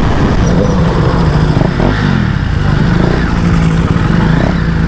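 KTM Duke 390's single-cylinder engine slowing from highway speed: its pitch falls through a couple of downshifts, then it settles to a steady idle about three seconds in.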